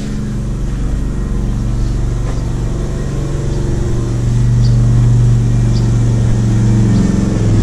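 Engine of construction machinery running steadily, getting louder about four seconds in.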